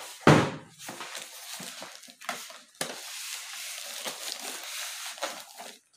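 Polystyrene foam packing and plastic wrap being pulled off a boxed laser printer: a loud knock right at the start, then continuous rustling and scraping of foam and plastic with a few sharper knocks.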